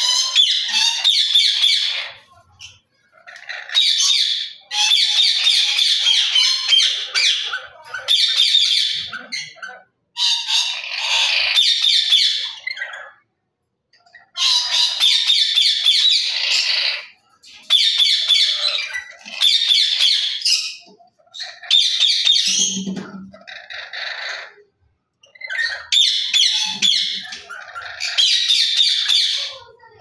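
Lory parrots squawking and chattering in loud, shrill bursts of one to three seconds each, about a dozen of them, separated by short pauses.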